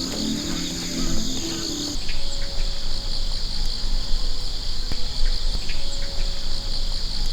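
Insects chirring steadily in a continuous high trill. A low, steady pitched layer underneath stops about two seconds in, leaving a low rumble with faint scattered clicks.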